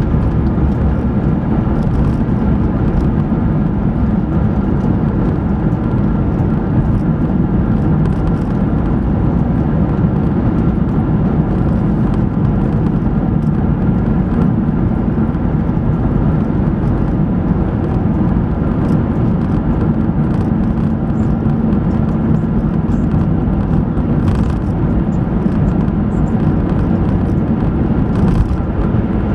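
Steady low road noise inside the cabin of a moving hybrid car, the tyres running on the road with the car's own running underneath.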